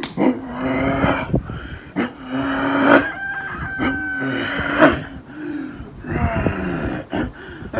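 A man's voice imitating a heavy truck's diesel engine. The pitch holds, climbs and breaks off several times, like a truck revving and shifting through its gears.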